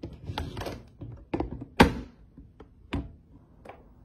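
Things being handled and set down at close range: a series of taps and knocks, the sharpest a little under two seconds in, with a brief rustle about half a second in.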